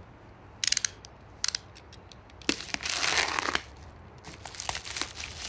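A few sharp clicks of a utility knife's blade slider being pushed out, then the crinkling and rustling of a plastic mailer bag being handled, strongest for about a second midway, with scattered crackles near the end.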